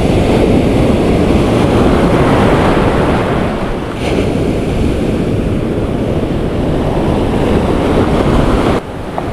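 Ocean surf breaking and washing up the beach, with wind buffeting the microphone. The sound drops off sharply near the end.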